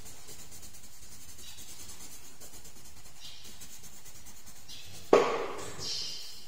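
Colored pencil scratching on paper in short strokes, heard as a soft hiss that comes and goes. About five seconds in there is a sudden loud thump that dies away quickly.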